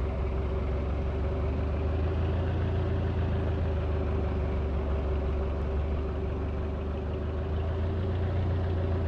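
Ceiling fan running steadily: an even low motor hum with a faint steady tone above it and a wash of air noise.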